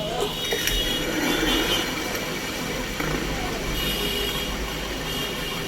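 Ceiling fan running on worn-out (dead) bearings, giving off a terrible continuous metallic grinding noise with several steady high whining tones.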